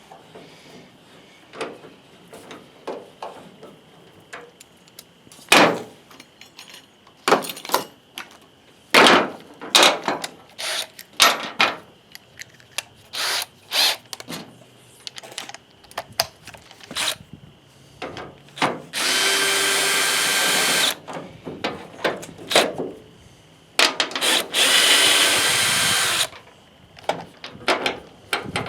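Power drill running in two bursts of about two seconds each, between scattered clicks and knocks of tools and metal parts being handled.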